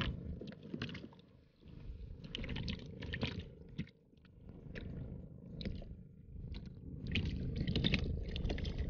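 Water sloshing and splashing close to the microphone, with small irregular knocks and clicks, getting louder near the end.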